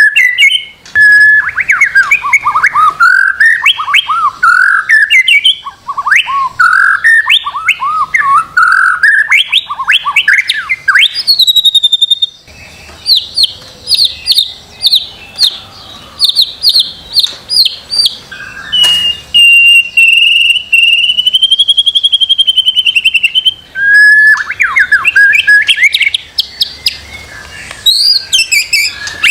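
White-rumped shama (murai batu) singing loudly in a long, varied song: fast phrases of whistles sweeping up and down, a quick run of high repeated notes, and a long wavering whistle, broken by short pauses. This is a masteran recording, played to teach captive shamas and get them singing.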